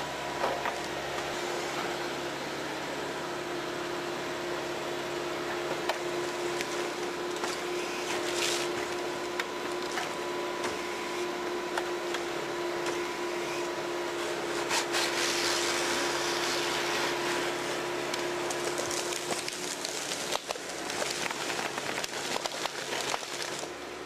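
Walking excavator with a tree-harvester head working: its engine and hydraulics run with a steady whine, under scattered cracks and knocks of wood. Louder noisy spells come about two-thirds of the way in and near the end.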